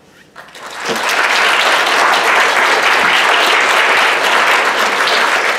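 Audience applauding loudly. The clapping begins about half a second in, swells to full within a second and then holds steady.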